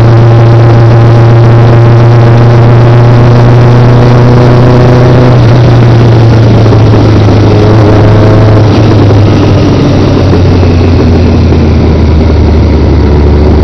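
Motorcycle engine running loudly at a steady road pace, picked up by a camera on the bike itself over road and wind noise. From about two-thirds of the way in, the engine note sinks gradually as the bike eases off.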